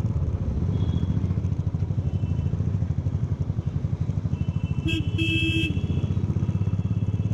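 Motorcycle engine running under way, a rapid steady beat of exhaust pulses. About five seconds in, a vehicle horn honks twice, a short toot and then a longer one.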